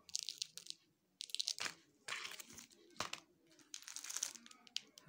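Plastic-sleeved bindi packets crinkling in several short bursts as they are handled and laid on top of one another.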